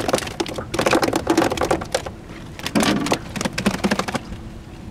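Water splashing in quick, irregular spatters, in two spells that ease off about four seconds in.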